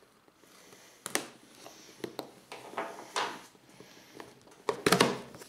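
Cardboard shipping box being opened by hand: separate scrapes, rustles and knocks of the lid and its taped flaps, the loudest cluster near the end.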